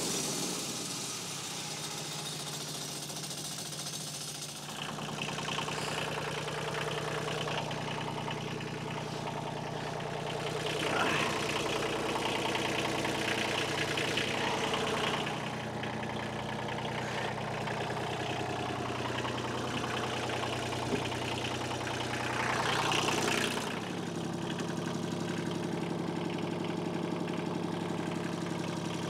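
Engines idling steadily: the portable bandsaw mill's engine and a compact tractor. The idle gets busier about four seconds in, and there are a few louder swells of noise in the middle.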